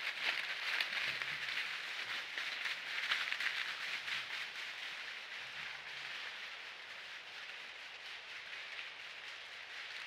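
Wild hogs moving through dry grass and leaf litter: a crackling rustle that fades over the first half as they move off, with a few faint low grunts.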